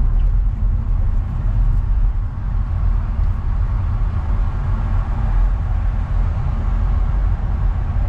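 A car driving, with a steady low rumble of engine and road noise that holds evenly throughout.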